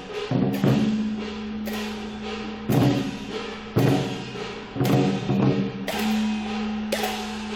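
Chinese gong-and-drum troupe playing on the march: hand cymbals crash together with drum strokes about once a second, and a low ringing tone carries on between the strikes.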